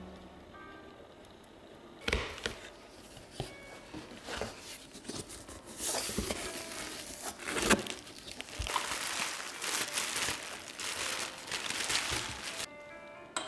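Bubble wrap and plastic packing being pulled out of a cardboard box by hand: irregular crinkling and rustling with sharp crackles and a few louder knocks. It starts about two seconds in and stops shortly before the end.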